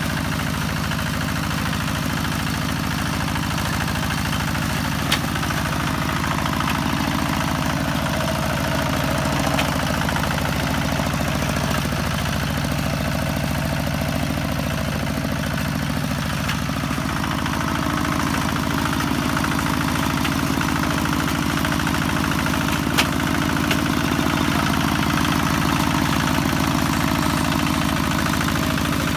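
Kubota RT140 walk-behind tractor's single-cylinder diesel engine running steadily as it ploughs wet paddy mud. A couple of sharp clicks stand out.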